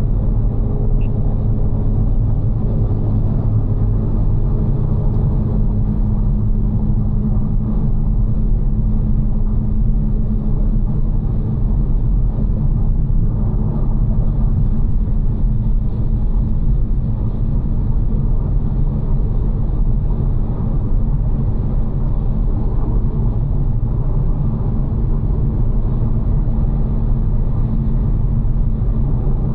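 BMW G82 M4 cruising at a steady speed: a constant low drone of engine and road noise with a steady hum, no revving or gear changes.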